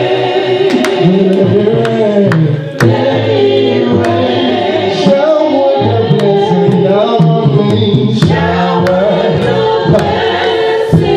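A man singing a gospel song through a microphone and PA, his voice sliding and holding long notes, with sharp percussive hits scattered through it.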